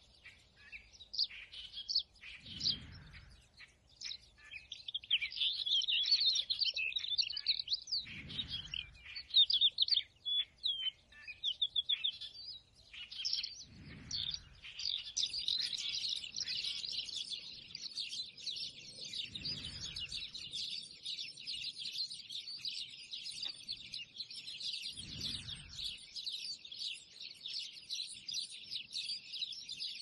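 Songbirds singing and chirping. Separate song phrases come first, and from about halfway a dense, continuous chorus of many birds takes over. A soft low whoosh recurs about every five or six seconds underneath.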